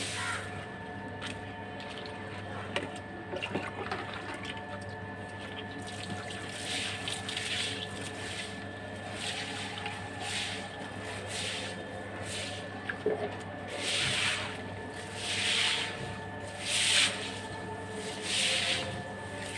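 Stick broom swishing water across a wet floor in repeated strokes, fainter at first and louder in the second half at about one stroke every second and a half. A steady electrical hum runs underneath.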